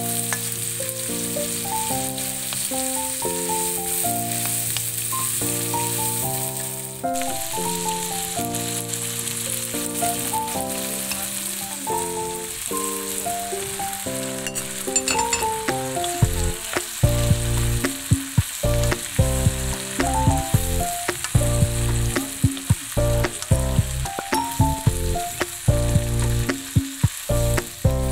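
Long beans, tomatoes and eggplant sizzling as they are stir-fried in a wok with a wooden spatula, under background music with a stepping melody. After about sixteen seconds a low, regular beat joins the music.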